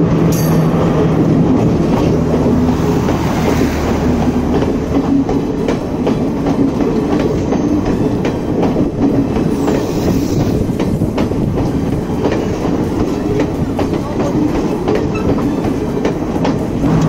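Sri Lanka Railways Class S12 diesel multiple unit passing close by: a steady rumble of the carriages with the wheels clacking over the rail joints. A low engine hum sounds in the first few seconds, then fades.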